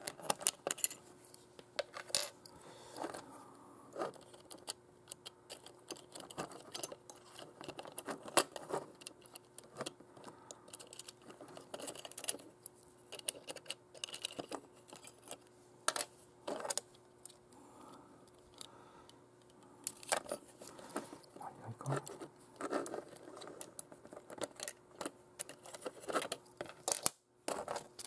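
Irregular small clicks, ticks and scrapes of a thin precision screwdriver working at the plastic canopy and shell of a model, prying the parts apart, over a faint steady hum.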